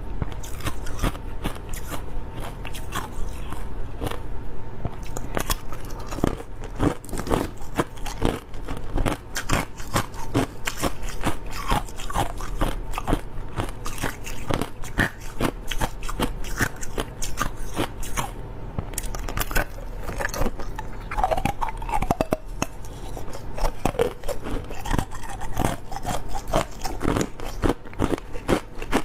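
Crushed clear ice being chewed close to the microphone: a continuous run of sharp crunches and crackles as the ice breaks between the teeth.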